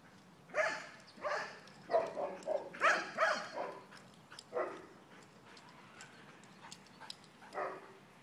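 Belgian Tervuren dogs barking as they play: a quick run of short barks in the first few seconds, then two more spaced barks later.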